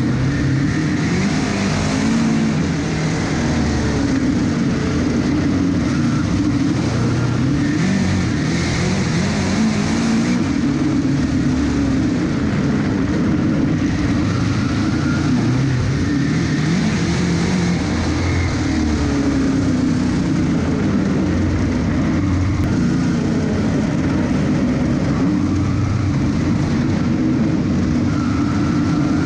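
Dirt modified race car's V8 engine heard from inside the cockpit under racing load, loud and continuous. The pitch rises and falls as the driver lifts for the turns and gets back on the throttle down the straights.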